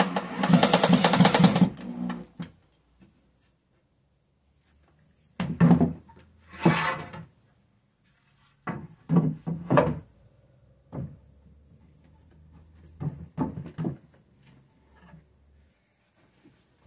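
A power tool runs for the first couple of seconds and stops. Then come several short knocks and scrapes of wood pieces being handled and set in place.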